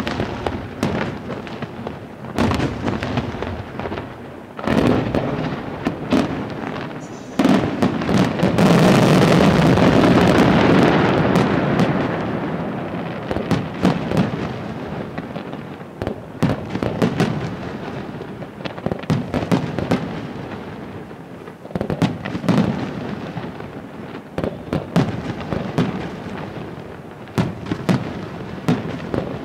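Aerial fireworks shells bursting one after another as sharp bangs, each trailing off in a rumbling echo. About a quarter of the way in, the bursts merge into a dense, loud barrage for several seconds, then they thin out again to separate bangs.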